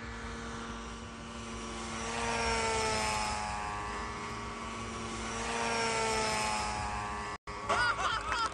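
Engine and propeller drone of a homebuilt single-engine light aircraft flying a low pass, swelling twice and sliding in pitch as it goes by. After a brief cut near the end, onlookers shout and clap.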